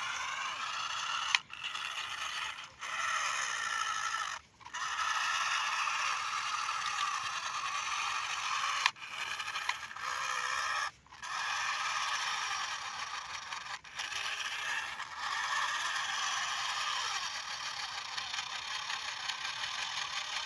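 Plastic toy vehicles scraping and grinding as they are worked, in a steady noisy run broken by several abrupt cuts.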